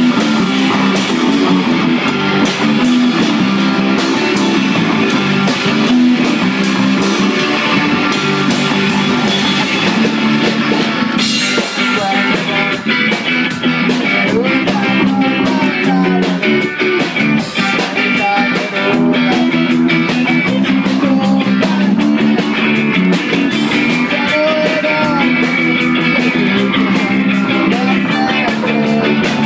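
Rock band playing live: distorted electric guitars through amplifiers over a full drum kit. The drumming gets sharper and busier about eleven seconds in.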